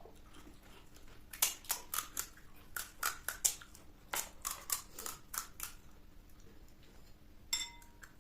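Crisp, hollow pani puri shells crunching between the teeth as they are chewed, in a quick run of sharp crackles for about four seconds. Near the end comes one brief ringing tone.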